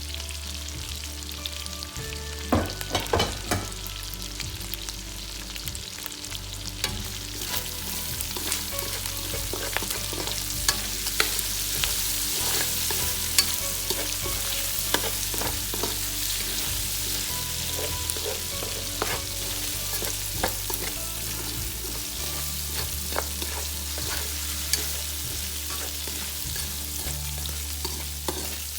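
Food sizzling as it fries in a hot pan, stirred with a utensil that clicks and scrapes against the pan, with a louder run of clicks a few seconds in.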